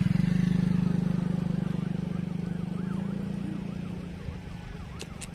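A low engine running close by, loudest at the start and fading away over about four seconds, like a motor vehicle or boat engine moving off.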